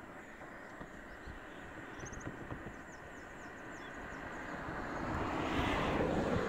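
A road vehicle driving past, its engine and tyre noise swelling steadily to a peak near the end, then starting to fade.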